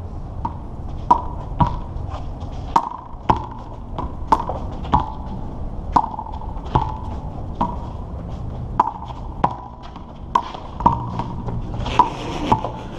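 Rubber handball being struck by hand and bouncing off the concrete wall and court floor: a long run of sharp slaps, each with a short ringing ping, coming about every half second to a second.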